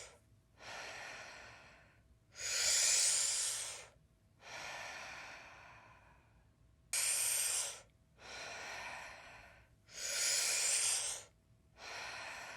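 Deep, audible breaths in and out in a steady rhythm, one full breath about every three to four seconds, each loud breath followed by a quieter, longer one. This is Wim Hof-style power breathing, the round of deep breaths before a breath hold.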